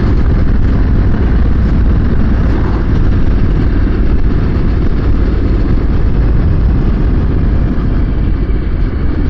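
Wind rushing over a helmet-mounted microphone on a moving Triumph motorcycle, with the engine running steadily underneath. The wind noise is loud and even, heaviest in the low rumble.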